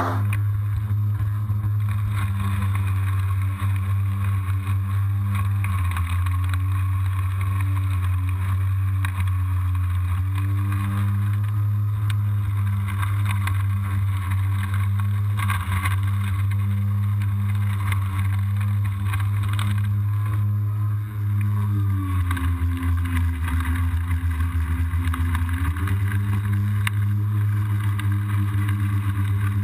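Kobalt 40V Max cordless electric lawn mower running as it cuts tall, thick grass: a steady motor-and-blade hum whose pitch dips and recovers several times, most clearly twice in the last third.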